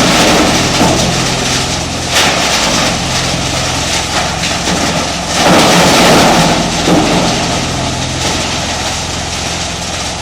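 Coconut husk shredding machine running, its 15 HP three-phase electric motor giving a steady low hum under a loud, even mechanical noise. The noise swells about two seconds in and again for about a second between five and six and a half seconds in.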